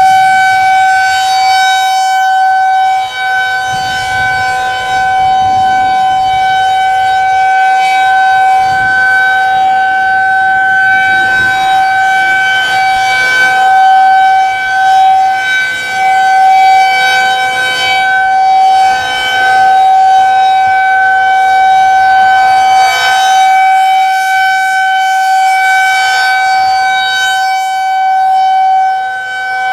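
Federal Signal 2001-SRN tornado siren sounding a steady, unchanging tone for a scheduled warning-siren test. Its loudness swells and dips slightly.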